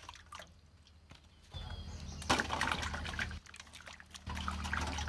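A knife slices fresh bamboo shoots over a metal bowl of water, with wet cuts, clicks and slices dropping into the water. A steady low hum starts about one and a half seconds in, drops out for about a second and then returns.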